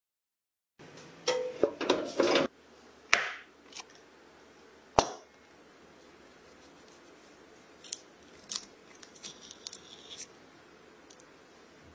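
A knife cutting through a crisp Oreo cookie and a cupcake, heard as a few short bursts of crunching and crackling, a sharp click about five seconds in, then faint light ticks as the halves are pulled apart.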